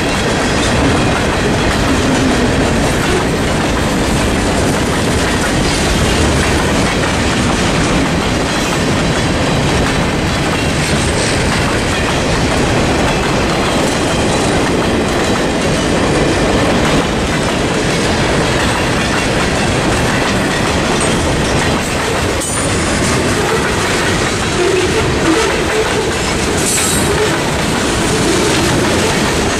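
Freight cars of a mixed freight train rolling past at a level crossing, their wheels clattering steadily over the rail joints, with a brief high wheel screech near the end.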